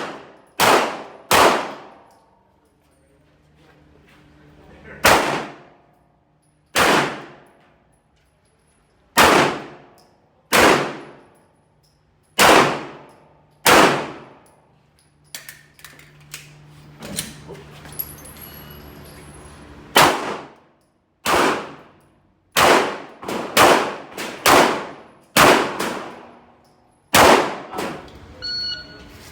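Glock 19 9 mm pistol firing a string of over twenty shots, some single and some in quick pairs, with pauses of a few seconds between groups.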